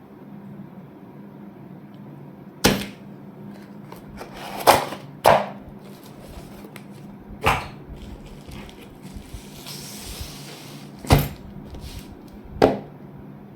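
Box and packaging being handled: six sharp knocks and taps at uneven intervals, with a brief rustle a little before the fifth, over a low steady hum.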